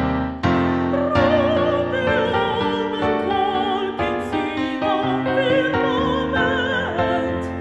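A young woman singing in a classical style with wide vibrato, over piano accompaniment; her voice comes in about a second in.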